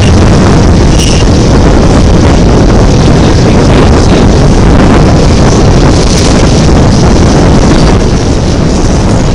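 Loud, steady rush of wind over the microphone mixed with the rumble of a loaded coal train passing alongside on the adjacent track.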